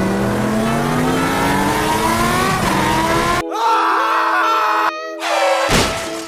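A racing car engine revs up, its pitch rising steadily for about three seconds, over background music. A shorter squealing stretch follows, then a brief burst of noise near the end.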